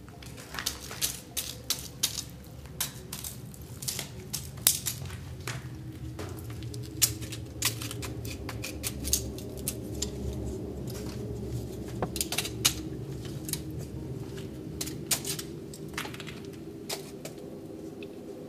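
Irregular sharp taps and crunching clicks: a stick knocking against brick walls and footsteps crunching over rubble on a concrete floor and stairs. A low steady hum runs underneath.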